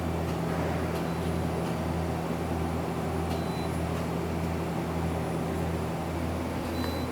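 Okuma LB-3000EX-II CNC turning center running with a steady mechanical hum and a low throb that swells about twice a second, while its sub-spindle is jogged along the W axis.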